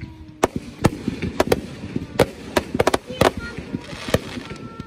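Aerial fireworks launching and bursting: a rapid, irregular string of sharp bangs, about a dozen in under five seconds.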